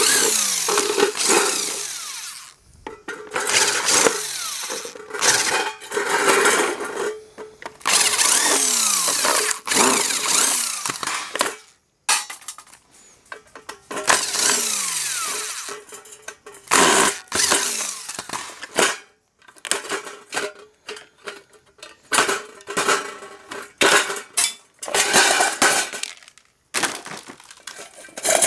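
Cordless power driver spinning out screws from a hot plate's casing in repeated bursts a second or two long, the motor pitch rising and falling as the trigger is pressed and eased, with shorter, quicker bursts near the end.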